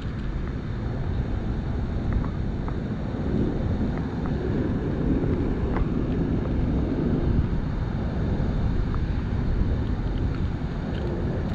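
Steady rush of water pouring through a dam spillway, mixed with wind buffeting the microphone.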